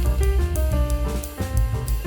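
Background music with a drum kit, bass and pitched instruments, a steady beat throughout.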